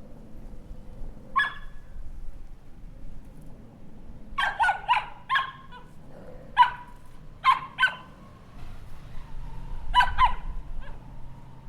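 A puppy yapping: about ten short, high-pitched yaps, some single and some in quick runs of two to four, with a run of four about four seconds in.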